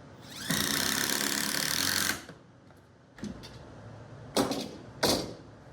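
A power drill spins up and drives a pocket screw into a 2x4 joint for about two seconds. A few shorter bursts follow near the end.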